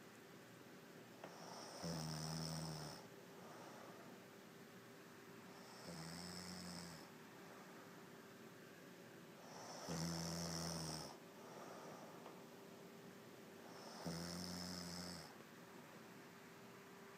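A woman snoring heavily in her sleep: four snores about four seconds apart, each breath swelling into a snore about a second long.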